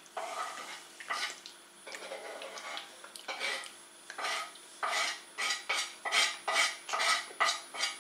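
A spoon scraping around a pot as soup is stirred. The strokes are irregular at first, then settle into a steady rhythm of about two to three a second in the second half.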